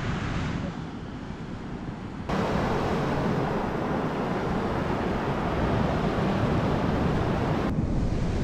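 Sea surf on a beach with wind buffeting the microphone: a steady rushing noise that changes abruptly about two seconds in and again near the end.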